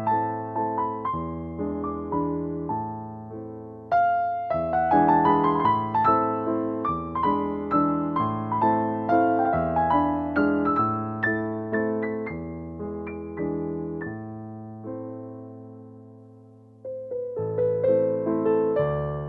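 Background piano music: a melody over bass notes, with a held chord fading out about three quarters of the way through before the playing starts again.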